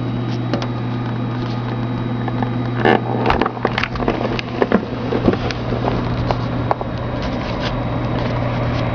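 A steady low hum, with scattered faint clicks and taps that are busiest in the middle.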